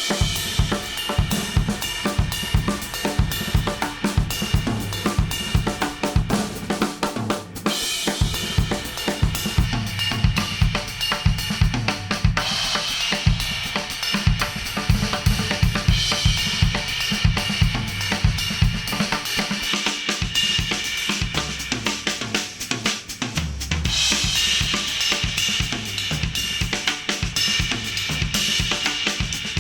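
Instrumental music with a full drum kit (kick, snare, hi-hat and cymbals) keeping a steady beat, played through headphones and recorded at an artificial ear.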